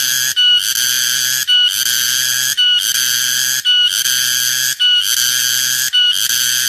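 Cicada singing loudly: a shrill buzz that breaks off briefly about once a second and starts again.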